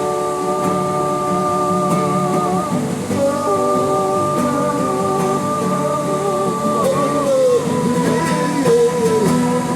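Live music: long held notes that move to a new pitch every second or two, some with a slight waver.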